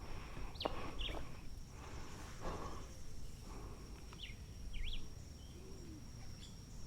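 Faint forest ambience: an insect's steady high-pitched buzz, with a few short bird chirps, two near the start and two more around the middle.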